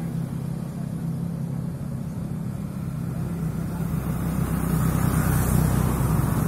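A nearby engine running with a steady low hum, growing louder about five seconds in.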